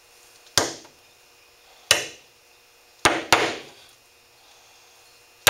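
Hammer driving 6-penny nails through a beaver hide into a wooden board: five sharp strikes at uneven intervals, two of them in quick succession about three seconds in.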